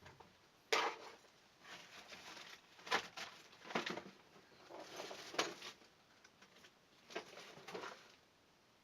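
Irregular scraping and clattering of small hard tools and parts being handled on a workbench: several short noisy strokes, roughly a second apart, with a quieter stretch near the end.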